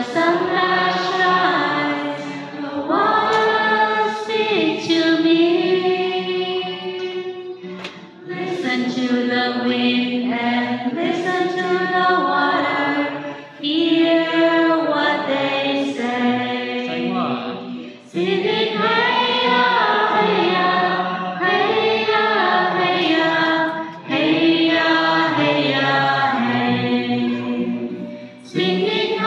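A small group of voices singing together in sustained phrases of a few seconds each, with short breaks between the lines.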